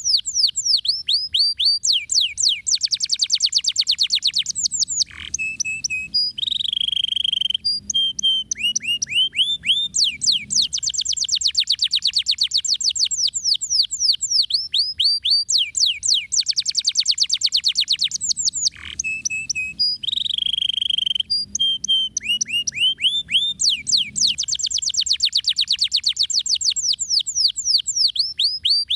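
Domestic canary singing a fast rolling song: long runs of rapid falling notes, broken twice by short held whistles, the phrase sequence recurring about halfway through.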